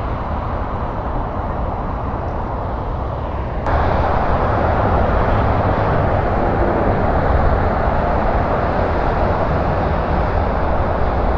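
Steady traffic noise that jumps abruptly louder about four seconds in, to the dense, even noise of many cars and trucks passing on a multi-lane freeway below.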